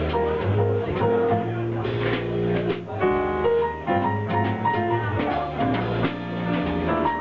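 A jazz trio playing: a bass line moving under melodic notes, with light drums.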